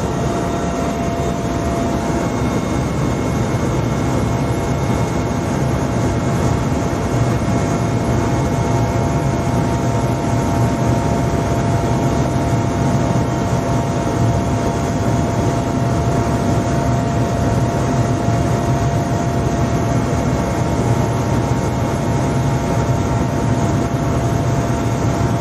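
Helicopter cabin noise in flight: a steady low drone from the rotor and engines, with a few thin, steady higher tones over it.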